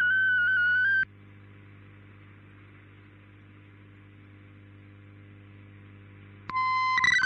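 Shortwave digital-mode radio signal, decoded in fldigi. For about the first second a sequence of tones steps up and down: an RSID mode-identifier burst announcing the switch to MFSK. Then come several seconds of faint receiver hiss with a low hum, and near the end a steady tone, then the warbling tones of MFSK64 data begin.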